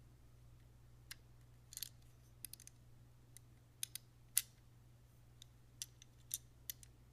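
Faint, irregular small metallic clicks and taps as the sear spring is pressed into the sear inside a Sig Sauer P226 pistol frame, about a dozen in all, the sharpest about four and a half seconds in, over a low steady hum.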